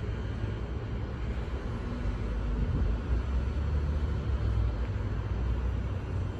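Low, steady rumble of a train at the station, growing a little louder about two seconds in.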